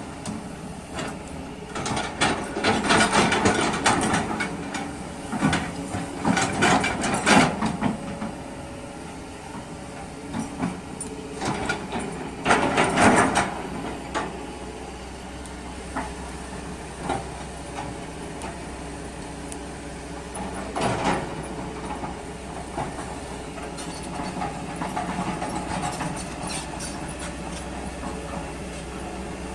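Kobelco hydraulic excavator running steadily while digging, with several loud bouts of scraping and clattering as the bucket works the soil, the loudest in the first half.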